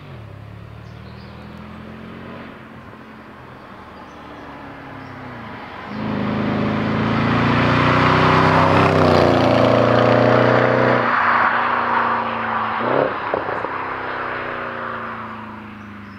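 Jaguar XFR's supercharged 5.0-litre V8 running at low revs. About six seconds in it opens up hard and rises in pitch, then eases off around eleven seconds with a couple of sharp cracks and falls away.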